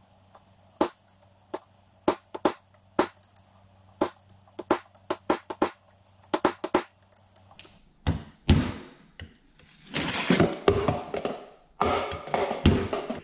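Hammer blows driving a new bearing down onto the countershaft of a Toyota W52 manual transmission, struck on the bearing's inner race. The first seven seconds or so are single, spaced metal taps; from about eight seconds in the blows come harder and closer together and ring on.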